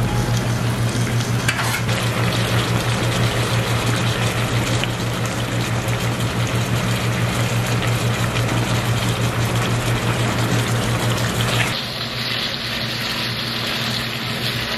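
Chicken thighs frying in a pan, a steady sizzle and bubble of fat and liquid over a low steady hum. About twelve seconds in the hum stops and the sizzle turns brighter.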